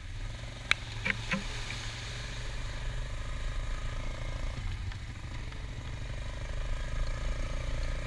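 ATV engine running steadily, with a sharp click under a second in.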